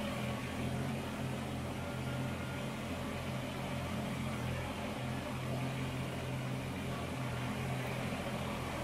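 Kubota BX compact tractor's three-cylinder diesel engine running steadily as the tractor moves slowly forward.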